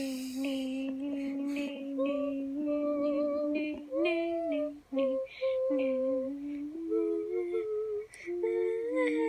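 A single voice humming a slow tune in long held notes, with short slides between notes and a couple of brief breaks.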